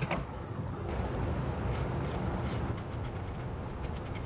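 Socket ratchet clicking rapidly as a 10mm taillight bolt is turned, the run of clicks starting a little past halfway, over a steady low rumble.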